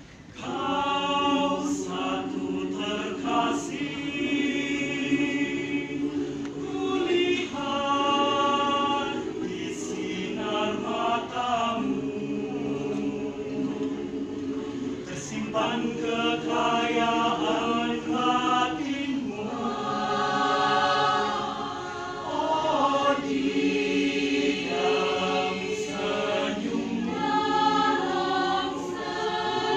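Mixed choir of women's and men's voices singing a cappella, coming in about half a second in and holding chords in many voices, with short breaks between phrases.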